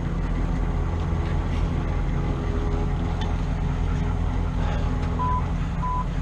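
Vehicle engine running steadily with a low drone, and two short, high beeps near the end.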